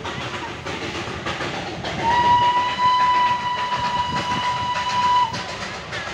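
Darjeeling Himalayan Railway toy train sounding one long, steady whistle from about two seconds in to near the end, over the rumble and clatter of the train running.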